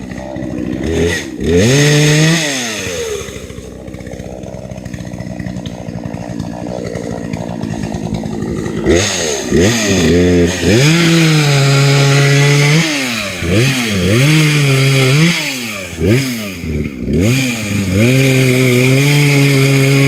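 Petrol chainsaw engine revving: one rev about a second in, then running at a lower speed for several seconds, then a run of quick throttle blips from about nine seconds, settling into a steady high-speed run near the end.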